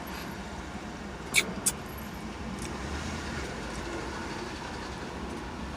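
Steady engine rumble of passing traffic or aircraft, with two sharp clicks about a second and a half in.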